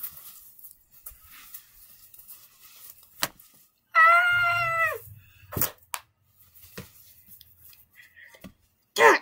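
Plush toys handled and shuffled on a carpet, with soft rustles and a few light knocks. About four seconds in comes one loud, high-pitched voiced squeal lasting about a second, holding its pitch and then dropping at the end, a child making a sound effect for the toys.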